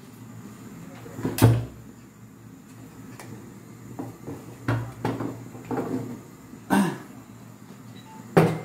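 Aluminium pot lids and cookware being handled on a gas stovetop: a series of separate knocks and clanks with short metallic ringing, the loudest about a second and a half in.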